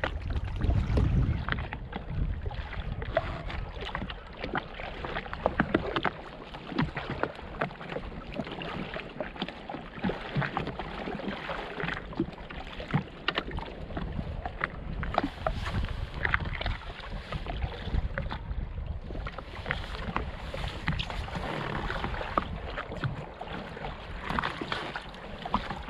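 Water lapping and slapping against the hull of a drifting jet ski, with scattered small knocks and clicks, and wind buffeting the microphone, strongest in the first couple of seconds.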